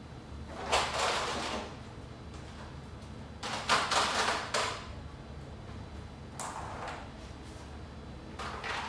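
Grow light tubes being picked up, handled and laid on a tabletop: four short bursts of rustling and scraping.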